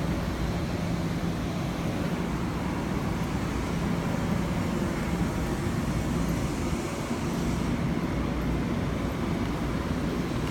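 Long Island Rail Road M7 electric train making a steady rumble with a low hum that comes and goes.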